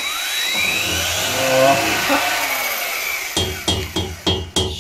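A power tool running steadily for about three seconds, its whine rising at the start as it spins up, then a run of short blasts, about four a second, near the end.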